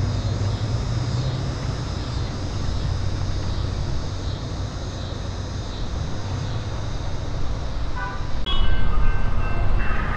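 Metra diesel commuter train pulling away, a steady low rumble of engine and wheels. About eight seconds in, a louder horn-like sound with several steady pitches joins in as a second train approaches.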